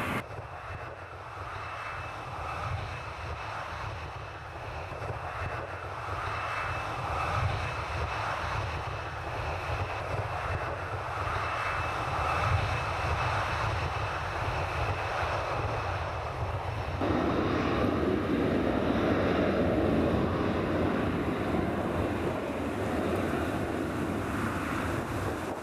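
Airliner jet engines running with a steady noise. About seventeen seconds in, the noise turns suddenly louder and deeper while a Ryanair Boeing 737 moves along the runway.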